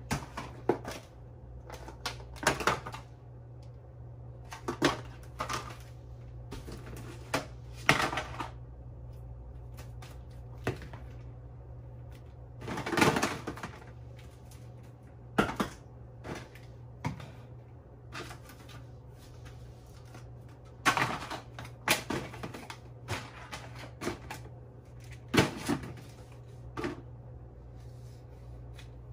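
Plastic baby bottles and their packaging being handled and unpacked: irregular clicks, taps and crinkles of plastic, with a longer rustle about 13 seconds in. A steady low hum runs underneath.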